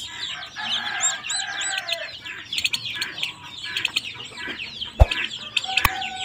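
A brood of Chinese Silkie chicks peeping continuously: many rapid, high chirps overlapping throughout. Two sharp clicks sound near the end.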